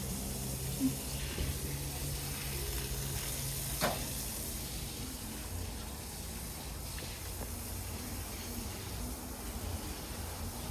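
Steady outdoor background noise with a low rumble and a low hum. The hum stops at a single sharp click about four seconds in.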